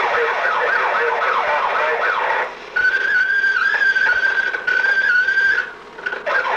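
Police-siren sound: quick repeated up-and-down sweeps for about two and a half seconds, then a steady high wail for about three seconds that cuts off suddenly.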